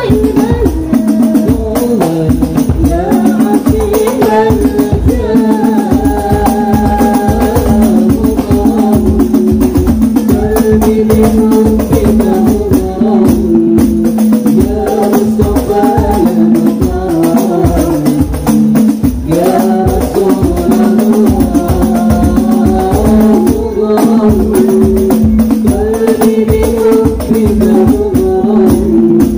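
Hadroh ensemble of hand-struck rebana frame drums and larger deep-shelled hadroh drums playing a fast, busy variation rhythm, with voices singing a sholawat melody over it.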